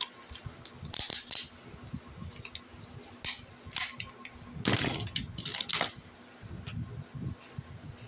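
Plastic clicks and rattles of a Tobot transforming toy's parts being handled and moved by hand. There is a cluster of clicks about a second in and a longer rattling spell around the middle.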